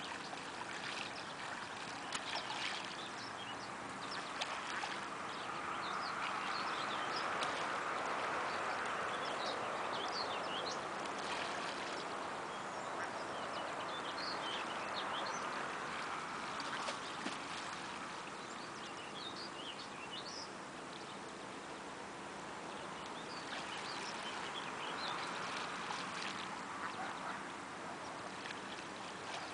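Ducks and Canada geese on open water calling now and then, with short high calls scattered throughout over a steady wash of background noise that swells in the middle.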